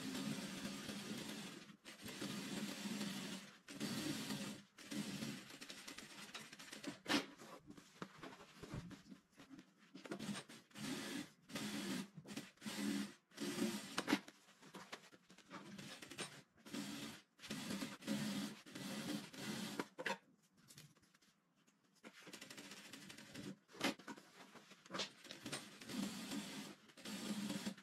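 JAKI industrial single-needle lockstitch sewing machine stitching lace trim onto brocade in runs of a few seconds, stopping and starting as the fabric is guided, with a longer pause about three-quarters of the way through. A few sharp clicks stand out above the running.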